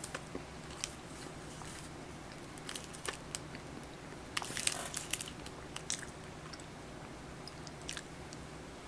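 A person biting into and chewing a small soft snack cake, with scattered small clicks and mouth noises, a cluster of them a little before the middle, over a faint steady low hum.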